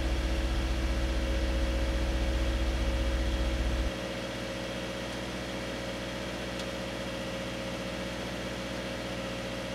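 A 2016 Subaru Crosstrek's 2.0-litre flat-four idles steadily at a raised cold-start idle in −31 °C cold. About four seconds in, the sound abruptly turns quieter and loses its deep rumble, then the idle carries on evenly.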